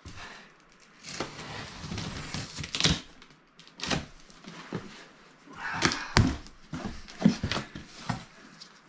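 Cardboard box being opened by hand: a scraping hiss as the packing tape along the seam is cut, then rustling, scraping and several sharp knocks as the lid comes off and the flaps are folded back.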